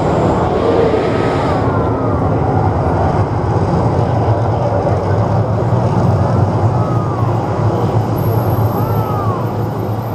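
The volcano attraction's flame jets fire with a loud rushing noise that cuts off about two seconds in. A steady low rumble carries on afterwards.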